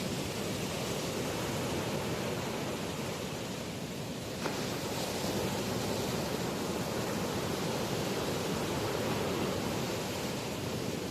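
Rough sea surf in strong wind: waves breaking and washing in a steady, continuous rush, with a short dip in level about four seconds in.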